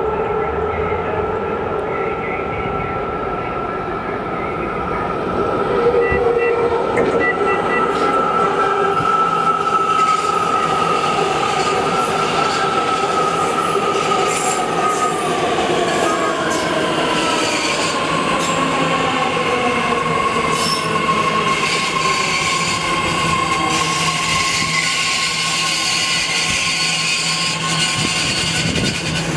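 BART rapid-transit train pulling into the station on a curve, wheels squealing with a steady high tone over the rumble of the cars. About halfway through, a whine slides down in pitch as the train slows.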